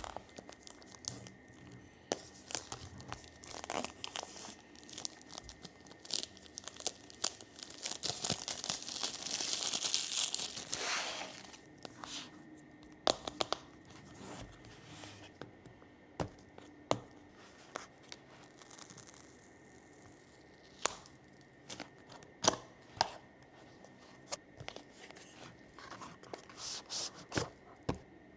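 Packaging of a new gimbal being torn open and handled during unboxing: crinkling and rustling, with a longer stretch of tearing about eight to eleven seconds in. Scattered sharp clicks and knocks come through, the loudest a little past twenty-two seconds.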